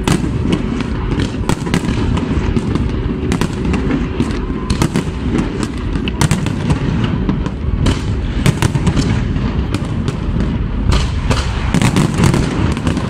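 Aerial fireworks display: shells bursting overhead in a rapid, continuous run of bangs and crackles over a deep rumble, growing denser near the end.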